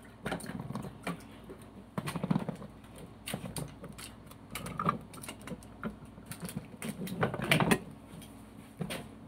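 Handheld manual can opener being cranked around the rim of a metal can, a run of irregular clicks and clunks as the blade cuts the lid, loudest about three-quarters of the way through.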